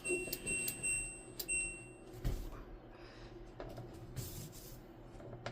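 Clothes dryer control panel beeping as its buttons are pressed to set an air-dry cycle: a quick run of short, high electronic beeps over the first second and a half, then a soft thump about two seconds in.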